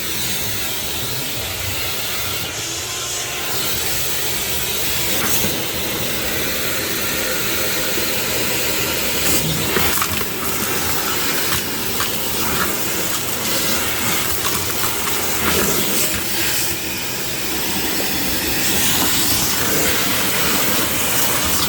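Shop-Vac wet/dry vacuum running steadily with a loud hissing rush of air through the hose, and scattered clicks and rattles as debris is sucked up.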